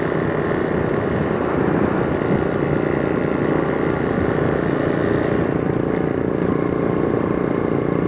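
Steady riding noise picked up by a helmet-mounted mic: the motorcycle's engine running at a steady cruise, mixed with a continuous rush of wind and road noise.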